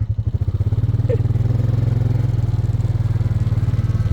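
A small engine running steadily at low revs, with a fast even pulse.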